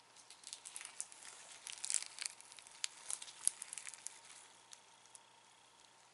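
Crunchy, granular 'Baby Axolotl' slime being squeezed and stretched by hand, giving a quick run of small crackles and pops that thins out about four seconds in.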